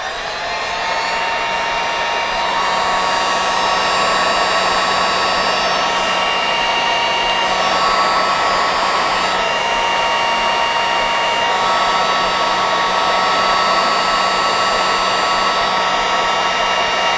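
Handheld heat gun blowing steadily, its fan motor spinning up as it switches on and then holding a steady whine over the rush of air.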